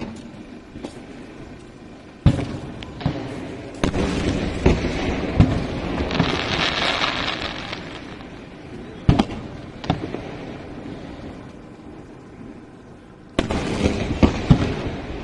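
Fireworks display: aerial shells bursting with sharp booms, about ten over a quarter-minute, each group followed by a long crackling fizz of sparks. The crackle is strongest in the middle and starts again with a heavy burst near the end.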